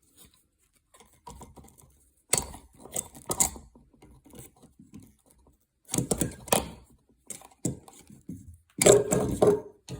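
Hands working electrical wiring: irregular clicks, taps and rattles of wires and small parts being handled, in several short bursts with pauses between.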